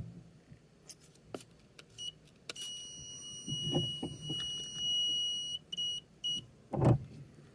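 Rain-sensor alarm buzzer sounding a steady high beep for about three seconds, then two short beeps. Scattered clicks and knocks run throughout. The beeping signals that the sensor has detected water.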